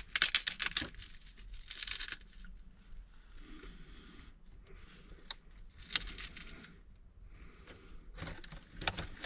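Chicharrones (fried pork rinds) being crunched up by hand, crackling and crumbling in several short bursts.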